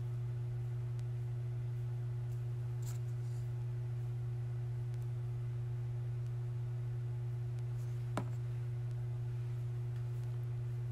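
Steady low hum with a fainter, higher steady tone above it, unchanging throughout, and one small click about eight seconds in.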